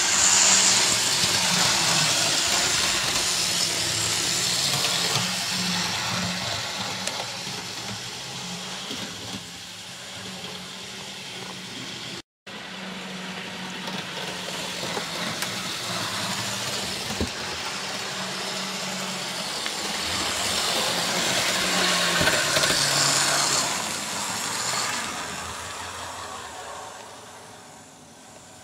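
Model Class 37 diesel locomotive running around a layout as a bare chassis with its body shell off: the electric motor and wheels on the track make a steady whir and hiss. The sound is loudest as the model passes close, near the start and again about three-quarters of the way through, and fades away near the end.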